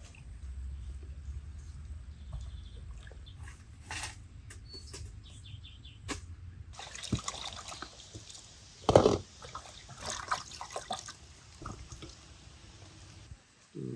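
Water running or pouring for about six seconds, starting about seven seconds in, among scattered clicks and knocks, with one louder knock about nine seconds in.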